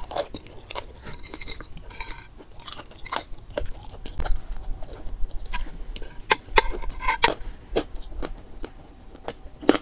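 Chewing and crunching chalk in the mouth, with irregular sharp crunches and crackles, and a metal spoon clinking against a glass bowl.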